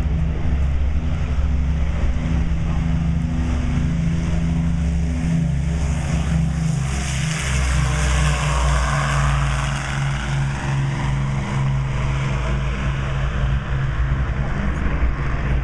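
Avro Lancaster's four Rolls-Royce Merlin V12 piston engines running at take-off power during the take-off roll, with a deep, steady propeller drone. The sound is loudest as the bomber passes about halfway through, then draws away as it lifts off.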